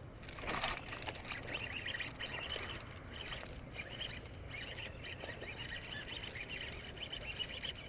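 Baitcasting reel and rod working a topwater frog lure: a sudden swish about half a second in, then steady handling and cranking noise, with birds chirping throughout.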